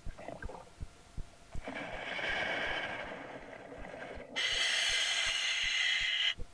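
Scuba diver breathing through a full-face-mask regulator underwater: a rushing exhale of bubbles, then a loud hissing inhale through the demand valve starting about four seconds in.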